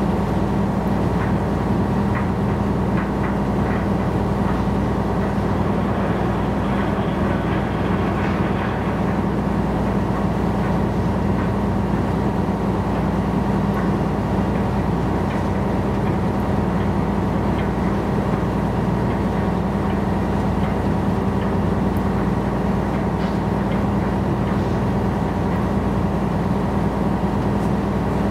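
Steady low drone of a gravel carrier's diesel engine running as the ship manoeuvres, with a strong deep hum and even overtones that hold the same pitch throughout.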